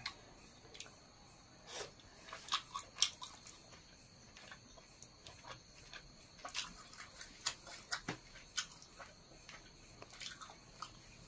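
A person chewing a mouthful of chicken curry: faint, irregular mouth clicks.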